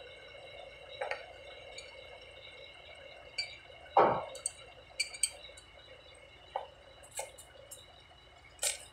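Metal parts and tools of a truck air compressor being handled during assembly: scattered light clinks and taps, with one louder knock about four seconds in.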